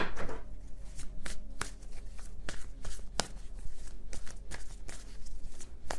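A deck of stiff tarot cards being shuffled by hand: an irregular run of sharp card snaps and short slides, loudest right at the start.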